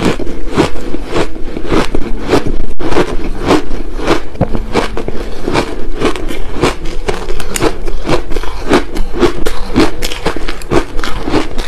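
Crushed ice being bitten and chewed, close to a clip-on microphone: a run of sharp, crisp crunches, about three a second.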